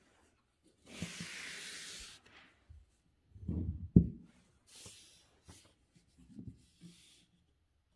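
A sheet of calligraphy paper being slid and handled on the desk: a long papery rustle, then dull thuds ending in a sharp knock about four seconds in, then a few lighter rustles and taps.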